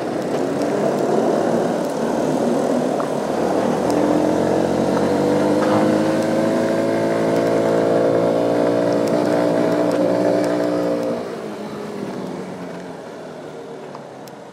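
Motorcycle engine running under throttle, its pitch climbing slowly, then easing off about eleven seconds in, after which it runs quieter.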